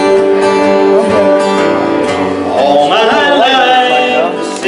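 Acoustic guitar accompanying a singer in a gospel song, with held notes at first and a sung melody line from about halfway.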